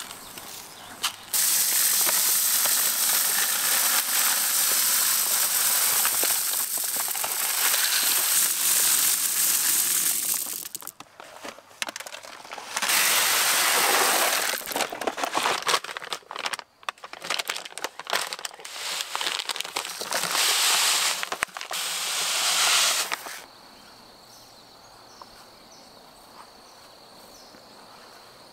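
Black oil sunflower seeds pouring into a plastic bucket: a loud, rattling hiss in three long stretches with choppier gaps between. Near the end it drops to a quiet background with a faint steady high whine and small chirps.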